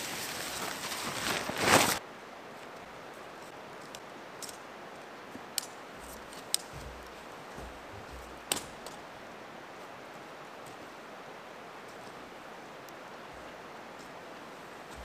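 Nylon tent rainfly rustling loudly as it is pulled off the tent, stopping abruptly about two seconds in. Then a few short, sharp clicks as the tent body is taken down.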